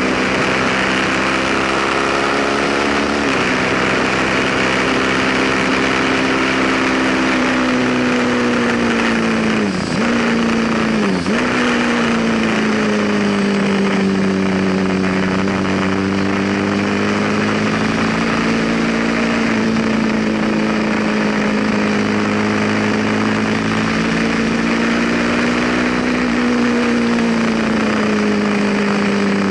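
Onboard sound of a Ducati superbike's V-twin engine running hard on track, its pitch sinking and rising slowly through the corners, with two quick sharp dips in pitch about ten and eleven seconds in at gear changes. A steady rush of wind runs under the engine.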